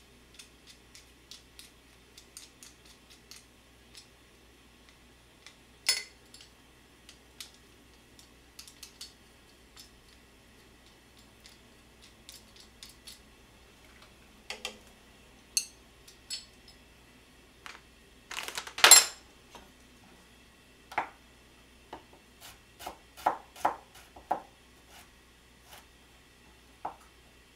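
Scattered kitchen clinks and knocks: chopsticks and metal utensils tapping a stainless steel pot and being set down on the counter, with one louder clatter about two-thirds of the way through. Near the end, a chef's knife knocks on a cutting board in separate strokes as carrots are cut into sticks.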